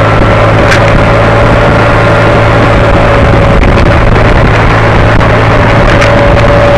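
Steady wind rush and engine drone from a vehicle cruising at road speed, loud and unchanging, with two brief clicks about a second in and near the end.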